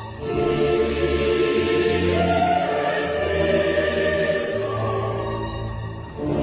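Background music: sustained choral singing in an operatic style, over a steady low bass.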